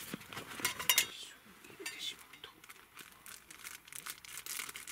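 A metal spoon stirring milk tea in a metal camping pot, clinking against the pot's sides, with a few louder clinks in the first second and lighter scraping and clinking after.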